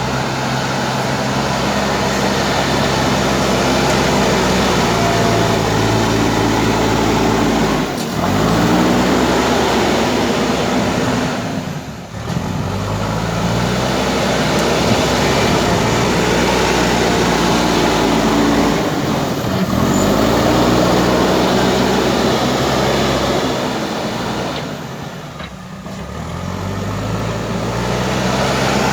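JCB 3DX backhoe loader's diesel engine working under load, its pitch sinking and then climbing back as it revs up again, several times over.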